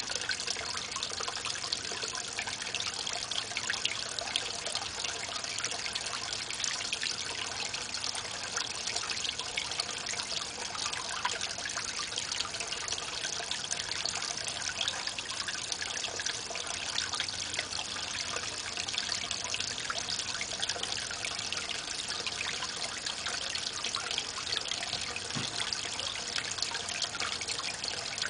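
Water trickling and splashing steadily into a goldfish pond, a dense patter of small splashes.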